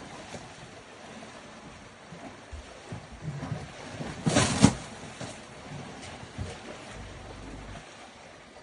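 Water splashing and sloshing as elephants struggle in a small lodge pool, with one loud impact about four and a half seconds in and a few smaller knocks before it.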